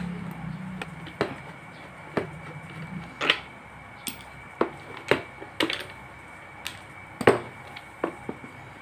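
Irregular sharp clicks and knocks of hard plastic and metal parts as a stand fan's broken plastic neck is unscrewed with a screwdriver and pried apart from its joint, about a dozen in all, with one louder knock late on.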